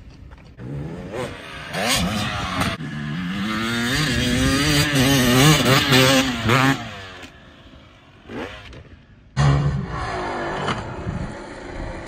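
Dirt bike accelerating hard, its engine revving up and wavering up and down as it builds speed, then fading off. About nine seconds in the engine cuts in suddenly loud and steady at high revs as the bike goes for the jump.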